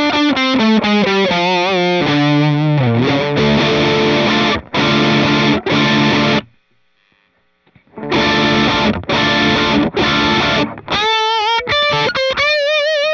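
Electric guitar through an OCD-style overdrive: single-note licks with bends and vibrato, then full chords, a pause of about a second and a half in the middle, more chords, and a wavering held lead note at the end.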